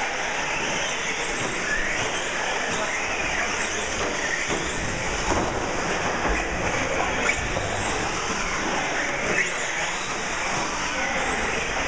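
Several electric 4WD short-course RC trucks racing around a track, their motors whining in shifting pitches over steady tyre and running noise.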